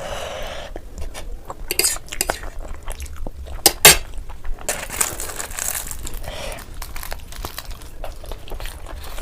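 Close-miked eating: noodles being chewed, with utensils clicking and clinking against a dish, including a loud sharp clink a little under four seconds in.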